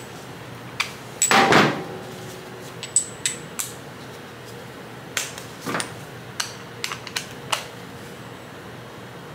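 Metal tool clinks as a socket, extension and torque wrench are fitted together and set onto a flywheel nut. There are about a dozen separate clicks and knocks, with a longer clatter about a second and a half in.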